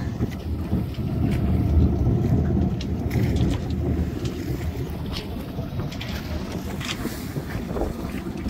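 Strong wind buffeting the microphone aboard a trimaran under way, a gusty low rumble that is strongest between about one and three seconds in, with a few light clicks.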